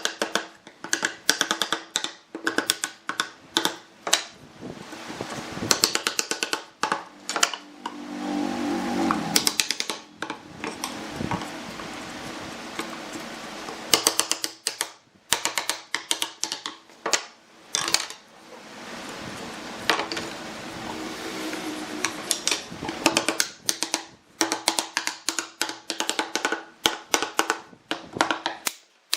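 Woodworking shop sounds: many sharp knocks and taps on wood at irregular spacing, with a power tool running in a few short stretches between them.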